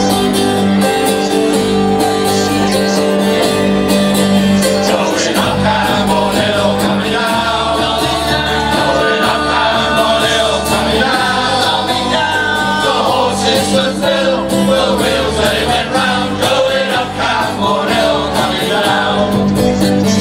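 A group singing a song to instrumental backing, over low notes held steady throughout.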